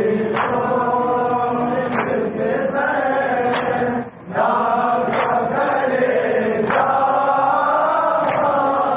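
Men chanting a nauha, a Shia Muharram lament, together, with a sharp collective slap of hands on chests (matam) in time about every 1.6 seconds. The chant drops away briefly about four seconds in.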